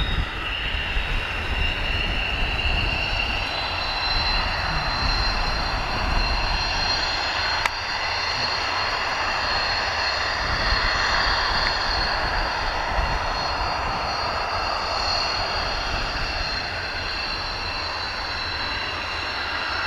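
Hawker Hunter T7's Rolls-Royce Avon turbojet running at taxi power as the jet rolls past: a steady high whine over a broad rush of jet noise.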